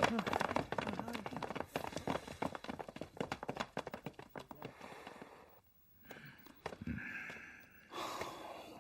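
Footsteps of a group of men walking away, many short steps that fade over the first five seconds, followed by a brief near silence.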